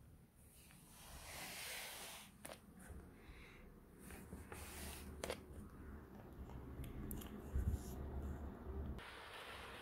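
Piko model train coaches rolling along the track with a low rumble and a few sharp clicks as the wheels cross the rail joints. Near the end a steady hiss sets in.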